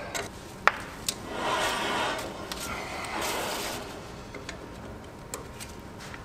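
A wrench clicks a couple of times on a trailer hub's spindle nut as it is snugged up, and then the trailer wheel is turned by hand on its freshly greased bearings, a rushing noise that swells twice.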